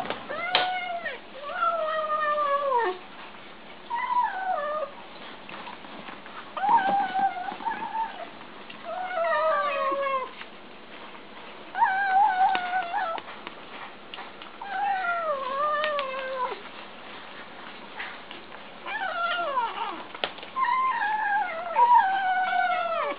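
Kittens making repeated meow-like calls while eating: about ten wavering calls, each about a second long, many sliding down in pitch at the end.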